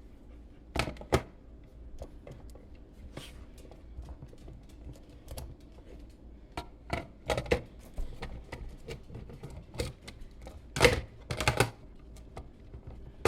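Scattered plastic clicks and knocks as a Ninja Creami pint container's lid is screwed back on and the tub is handled, with a quick run of louder knocks near the end.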